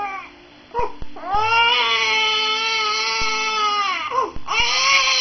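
A baby crying hard in long wails: a short catch of breath near the start, then two drawn-out cries of about three seconds each, each dropping in pitch as it tails off.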